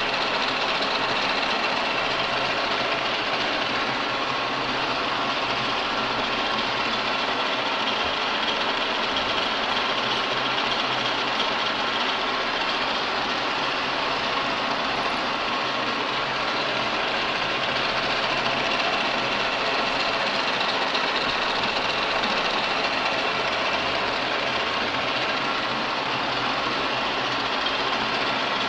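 Universal milling machine running steadily as an end mill cuts a radial shoulder in a workpiece on a rotary table: an even machine whir with several held tones that does not change.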